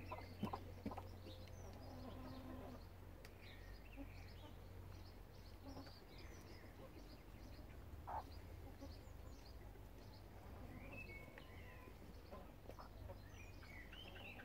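Faint scattered short chirps and soft calls from backyard hens and small birds, over a low steady hum, with a couple of short taps near the start and about eight seconds in.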